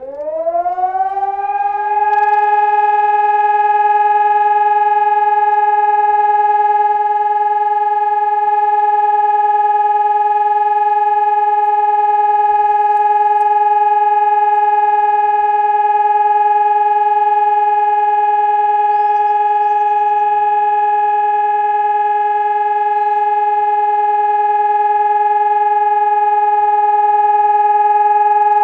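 Civil defence siren spinning up, its pitch rising over about two seconds, then holding one loud, steady tone. This is the continuous-tone 'Entwarnung' (all-clear) signal of a siren test.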